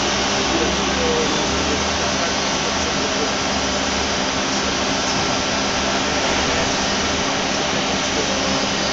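Hartford HEP-2150 CNC bridge mill running under power: a steady, even rushing noise with a low hum underneath, unchanging throughout.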